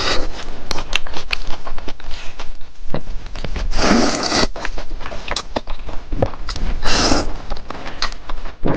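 Close-miked eating: wet chewing and lip clicks, with two longer slurps of spicy noodles about four and seven seconds in.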